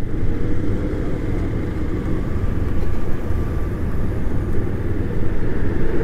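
Steady low rumble of a motorcycle engine and road noise while riding at an even speed, with a faint engine hum.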